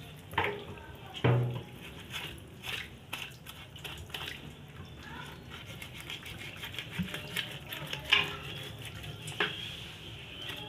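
Raw pork being cut and handled with a kitchen knife over a metal pan, with scattered knocks and clinks of the blade and dishes.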